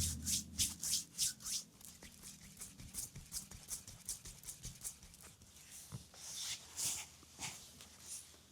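Hands rubbing briskly over the skin of a leg in a massage, about three short swishing strokes a second. The strokes grow fainter after about a second and a half, with one longer swish near seven seconds.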